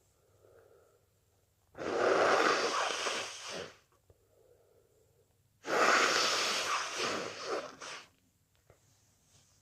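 A person with a head cold blowing their nose twice, each blow a long noisy blast of about two seconds that starts suddenly and tails off. Faint breaths come before each blow.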